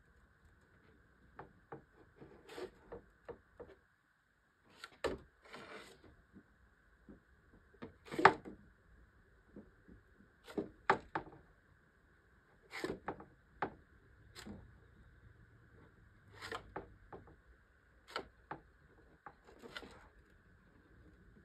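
Flat metal spreader scraping and smoothing body filler over a motorcycle fairing panel, in short irregular strokes about every second or two, with a faint steady hum underneath.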